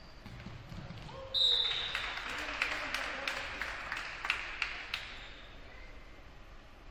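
A short referee's whistle blast about a second in ends the rally, and at once the players and the small gym crowd cheer and clap for a few seconds, with scattered sharp claps, before it dies away.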